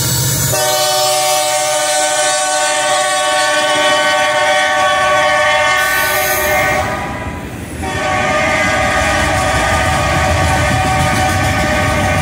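Locomotive horn on Norfolk Southern's New York Central heritage unit 1066, an EMD SD70ACe, sounding one long chord from about half a second in, breaking off briefly a little after halfway, then a second long blast. Underneath, the steady rumble and clatter of the passing freight cars.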